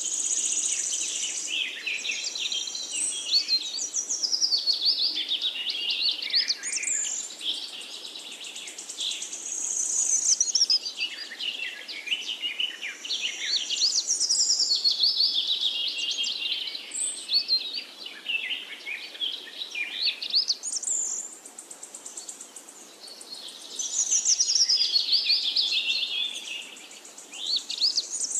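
Several songbirds singing together in overlapping phrases of chirps, sweeping whistles and rapid trills, with no break.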